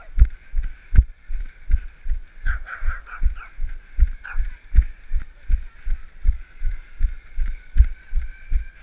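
A runner's footfalls making low, even thumps, about three a second, jolting the handheld camera, over a steady higher hiss.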